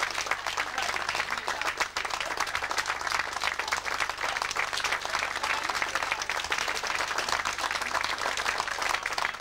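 Audience applauding: many hands clapping, dense and even.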